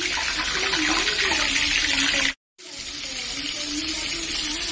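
Whole fish frying in hot oil in a wok, a steady sizzling hiss. The sound cuts out abruptly about two and a half seconds in, then the sizzle picks up again a little quieter.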